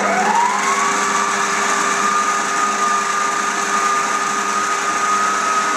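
Planetary stand mixer's motor starting up and running steadily with its dough hooks kneading minced and diced pork; its whine rises in pitch over the first second, then holds level.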